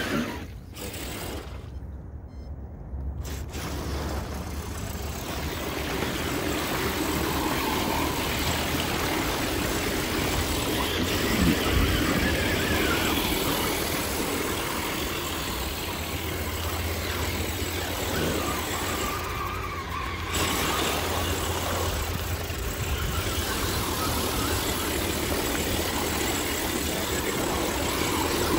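Radio-controlled 4x4 trucks' electric motors and drivetrains running as their tyres churn through deep mud and water, throwing up splashes. It is quieter for the first few seconds, then steady.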